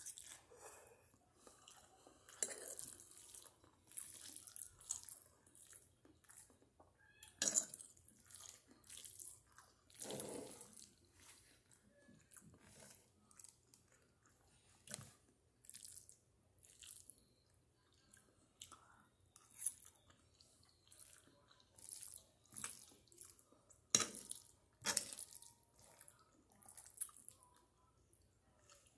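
A person chewing a mouthful of spaghetti close to the microphone: soft, irregular mouth clicks and smacks, with sharper ones about seven and a half seconds in and again around twenty-four and twenty-five seconds in.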